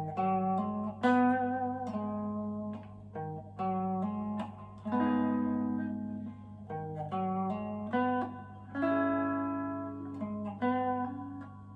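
Goldtop Gibson Les Paul electric guitar with Parson Street Golden Age humbuckers, played clean: picked chords and single notes ringing out and decaying, a new one struck every second or so. A steady low hum sits underneath.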